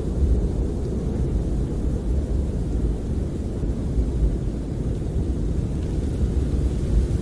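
Snowstorm wind buffeting a camper, heard from inside as a steady, deep rumbling rush with little high hiss.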